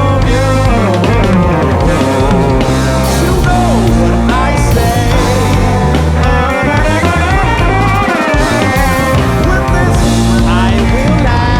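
Band music: electric guitar playing a lead line with gliding, bent notes over bass guitar and drums.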